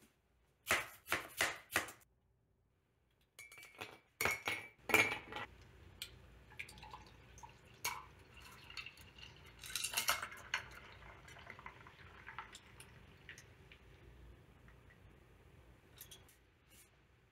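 Sharp knocks and glass clinks, then iced coffee poured from a glass pour-over carafe into a glass of ice cubes. The liquid pours steadily while the ice clinks and crackles, and the sound fades near the end.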